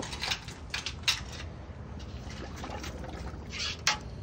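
A chicken being dunked and swirled in a pot of scalding water to loosen its feathers for plucking, the water sloshing and splashing in several short bursts.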